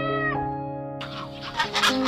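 A cat's meow tails off just after the start over steady background music. About a second in, a chicken starts clucking in rapid repeated calls.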